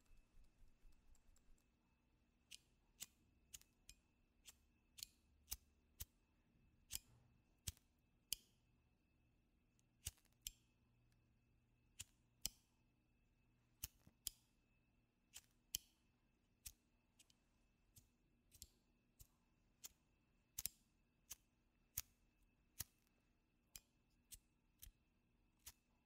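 A quick flurry of clicks fading out in the first second or so, then single short, sharp clicks at an uneven pace, roughly one to two a second, over a faint steady hum.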